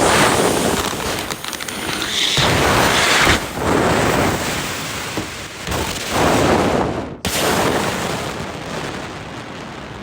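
Loud rushing, rumbling noise that swells and eases several times, with a sudden brief drop about seven seconds in, then dies away toward the end.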